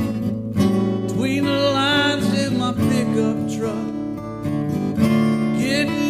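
Acoustic guitar strummed in a steady rhythm, playing a song.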